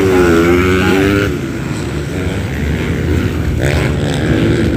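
Motocross bike engines revving as riders pass on a dirt track, the engine note rising and falling with the throttle.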